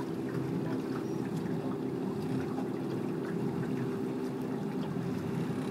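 A boat engine running steadily with a low, even hum, under a light wash of water and air noise.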